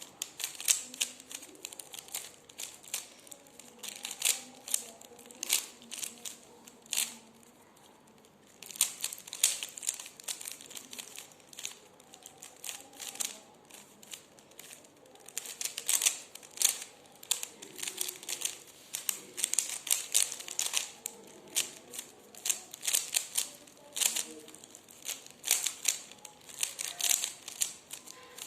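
A 3x3 Rubik's cube being turned by hand: quick runs of plastic clicks as the layers snap round, with a short pause about eight seconds in.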